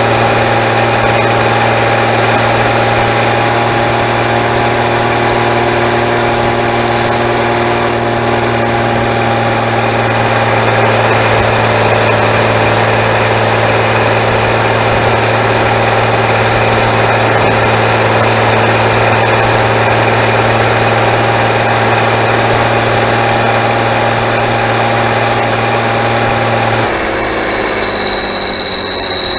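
David Brown 1690 Turbo tractor's turbo diesel engine running steadily with a high, thin turbocharger whistle over it. Near the end the engine note drops and the whistle slides down in pitch as the turbo winds down.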